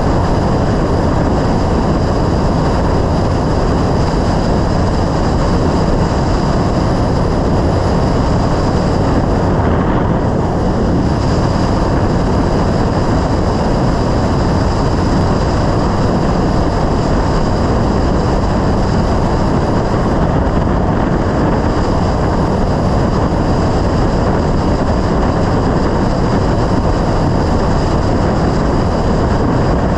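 Yamaha Road Star XV1600 motorcycle on the move, its V-twin engine running under a steady rush of wind noise.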